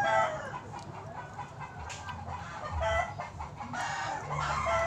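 Chickens clucking and a rooster crowing: one call tails off just after the start, and another longer call comes near the end.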